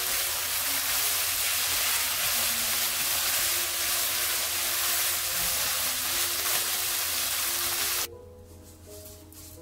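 Seaweed stems and vegetables sizzling loudly as they are stir-fried in a hot pan, with soft background music underneath. The sizzling cuts off suddenly about eight seconds in, leaving only the music.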